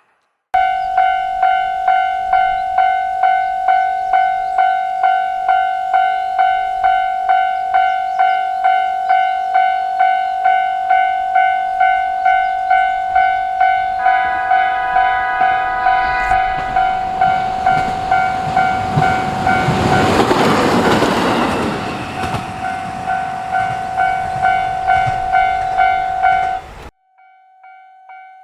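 Japanese level-crossing alarm bell ringing steadily, about one and a half strikes a second. About halfway through, an approaching diesel train sounds its horn for about three seconds. The train then passes with a loud rush of wheel and engine noise while the bell keeps ringing, and the sound cuts off abruptly near the end.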